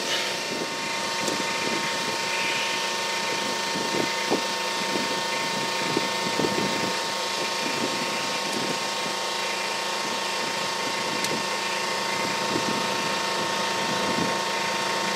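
A steady mechanical hum with a thin constant whine, with scattered light clicks and taps from a hand handling metal parts on the underside of a car.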